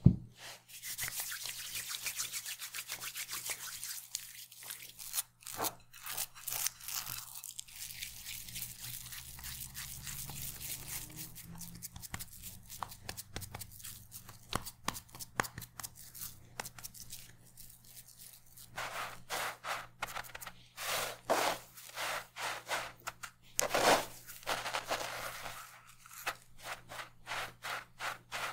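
Hands squishing and shaping a soft chickpea-and-egg patty mixture, then pressing the patty into dry breadcrumbs, the crumbs crunching and rasping against the board in a run of separate strokes in the second half.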